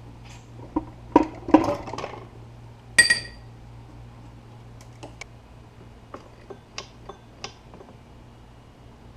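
Metal tools and parts clinking and knocking as they are handled, with one ringing metallic clank about three seconds in and lighter ticks after, over a steady low hum.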